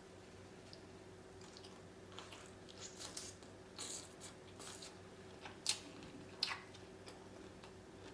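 A person chewing seafood close to the microphone: soft wet mouth clicks and smacks begin about two seconds in, with two sharper, louder clicks past the middle.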